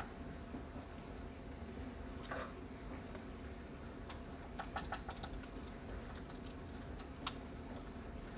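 Metal spoon scooping and pressing ground-meat filling into peppers in a foil-lined baking dish: scattered light clicks and scrapes, with a quick cluster of clicks around the middle, over a faint steady hum.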